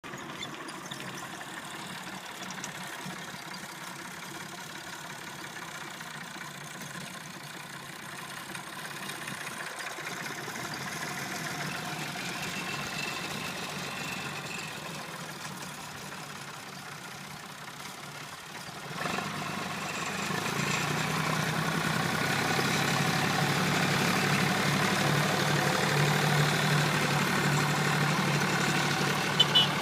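An engine running steadily, growing louder about two-thirds of the way through, with two short clicks near the end.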